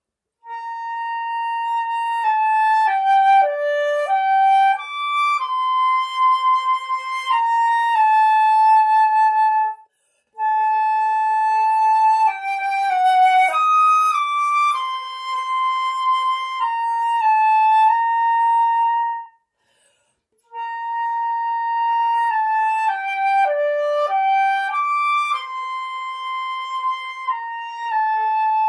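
Flutes playing a slow melody in three phrases, with brief breaks about ten and twenty seconds in; the third phrase repeats the opening one.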